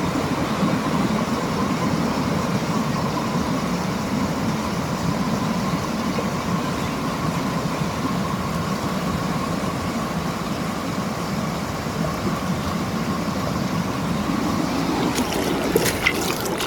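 Creek water rushing steadily over rocks. A few sharp clicks come near the end.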